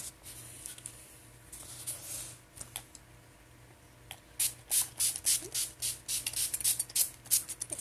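Pump-mist bottle of NYX Matte Finish setting spray being sprayed onto the face. A few soft sprays come about two seconds in, then a rapid run of a dozen or so short hissing sprays, about three a second, in the second half.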